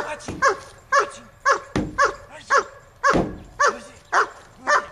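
German Shepherd on a leash barking repeatedly, about two barks a second, worked up for bite work.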